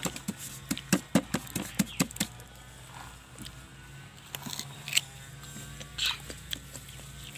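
Light clicks and taps of fruit and a plate of chili salt being handled at a table: a quick run of them in the first two seconds, then a few scattered ones.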